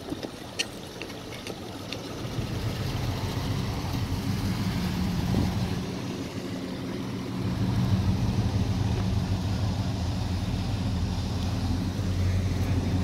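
Classic cars' engines running as they creep past in a line, a low, steady engine note that grows louder from about two seconds in. A few light clicks come in the first two seconds.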